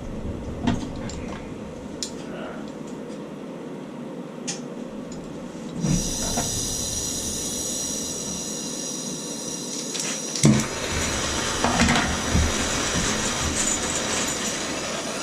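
Gas torch hissing as it heats the stuck shower valve body, starting about six seconds in and running steadily on, with a sharp knock about ten seconds in.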